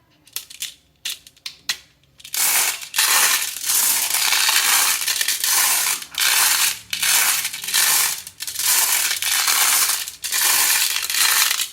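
A few separate clicks of marbles on a HABA wooden marble run, then from about two seconds in a loud, continuous clatter of many marbles rolling and knocking down the track, broken by a few brief pauses.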